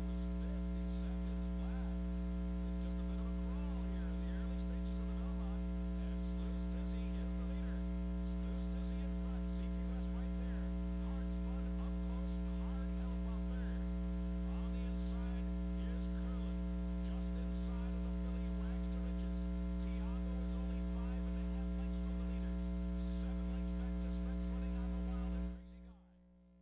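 Steady electrical mains hum with a stack of higher overtones, a recording-chain buzz on old broadcast tape; it drops away suddenly near the end.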